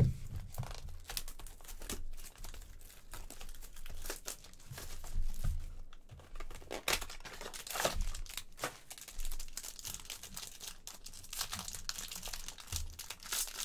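A cardboard trading-card box being opened and its foil-wrapped pack handled: crackly scraping and tearing, then crinkling foil, in irregular bursts.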